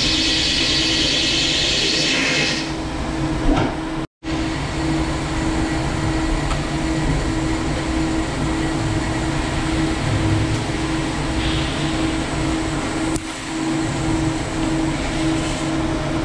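CNC lathe turning a hardened C40 steel flange: a steady machine hum with a constant tone, and a high hiss over the first couple of seconds. The sound cuts out for a moment about four seconds in.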